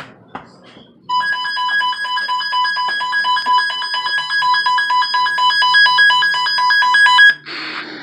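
Weather alert radio sounding its alarm for a Severe Thunderstorm Warning: a loud, rapid electronic beeping on two steady pitches. It starts about a second in, cuts off about a second before the end, and gives way to radio hiss.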